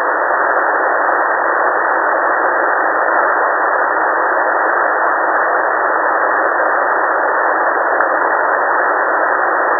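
Shortwave receiver hiss on an empty HF aviation channel between transmissions: steady, even static squeezed into a narrow radio voice band, with no bass or treble.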